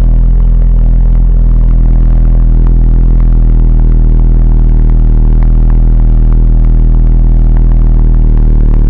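Snowmobile engine running loud and close at steady revs, with some clatter over it.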